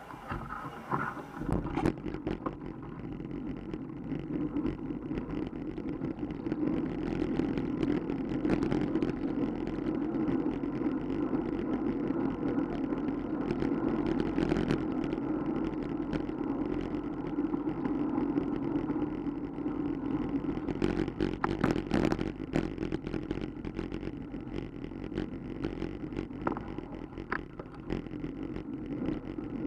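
Steady rush of wind and road rumble on the microphone of a camera riding through traffic, with scattered knocks and rattles. It comes up about a second and a half in, as the ride gets moving.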